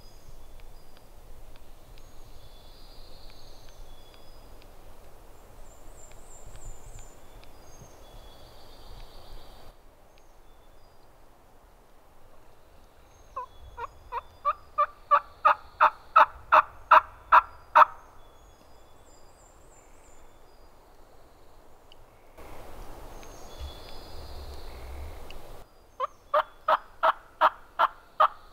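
Wild turkey yelping: a long run of evenly spaced yelps, about four a second, growing louder, and later a shorter run of about eight. High songbird chirps come before them.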